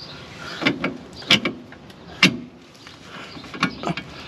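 Sharp metallic clicks in short, irregular groups as a wrench works a tight shock-mount bolt loose.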